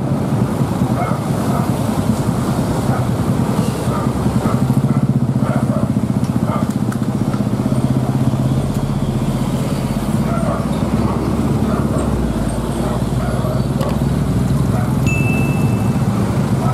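Road traffic passing close by: vehicle engines, including heavy trucks, running with a steady low hum and a deeper rumble swelling through the middle. A short high-pitched tone sounds briefly near the end.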